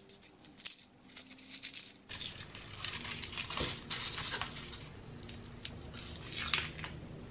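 Garlic cloves being peeled with a kitchen knife: scattered light clicks and taps of the blade on the cloves, with the dry papery skins crinkling.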